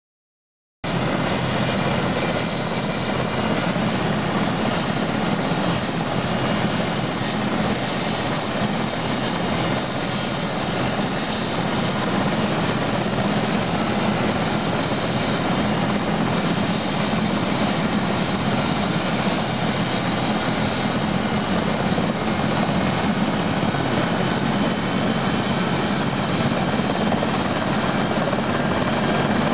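Police helicopter starting up on its pad: the turbine engine runs with a steady whine while the main rotor turns at low speed and begins to spin up. The sound cuts in abruptly about a second in and then holds steady.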